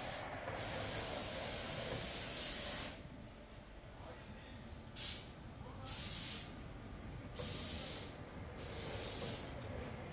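Fabric spreading machine at work, giving repeated bursts of hiss: a long one of about two seconds near the start, then several shorter ones roughly a second apart.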